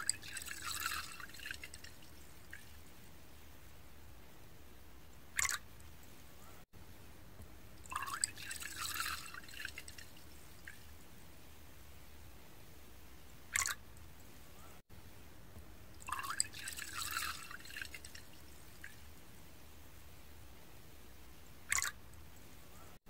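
Makgeolli being poured into a ceramic cup: about two seconds of splashing pour, then a single drop plopping into the full cup. The same pour-then-drop sequence comes three times.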